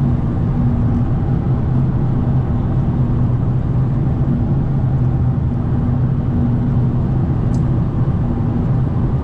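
Steady drone inside a car cruising on the highway: even engine hum under tyre and road noise, with no change in pace.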